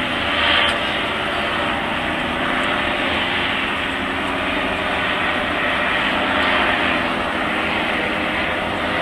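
Fixed-wing aircraft engine running as a loud, steady drone, swelling slightly about half a second in and again later.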